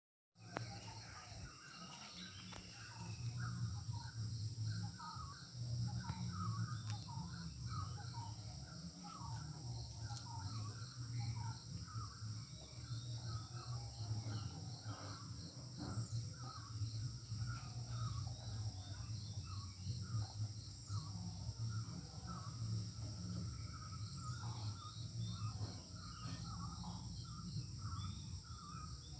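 Outdoor background of many birds chirping and calling, over a steady high-pitched drone and a low hum.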